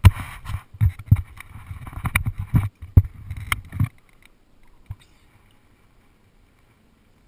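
Handling noise on the camera as it is knocked and swung around: a quick run of loud, irregular knocks and rubbing bumps, stopping about four seconds in, with one more single knock about a second later.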